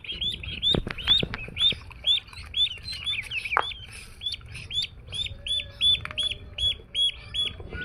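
Ducklings peeping: a steady run of short, high-pitched peeps, about three a second.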